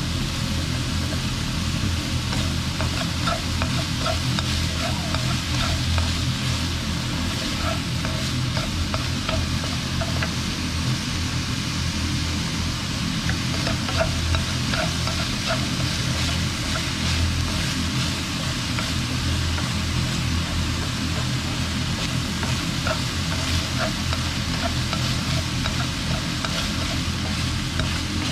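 Minced pork, onion and shiitake sizzling steadily in a nonstick wok as wooden chopsticks stir and toss it, with scattered light ticks of the chopsticks against the pan over a steady low hum.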